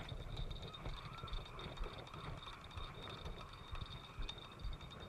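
Faint, steady, high-pitched drone of insects, over low rumbling from wind and handling on a body-worn microphone.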